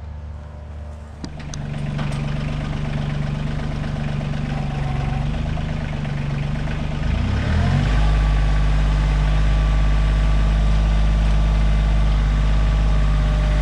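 Kioti CK2610 compact tractor's three-cylinder diesel engine idling, then throttled up about seven seconds in and held at a higher, louder speed.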